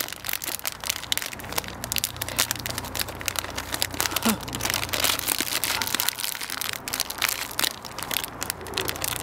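Plastic snack bag crinkling and crackling as it is handled and opened, a dense run of irregular crackles.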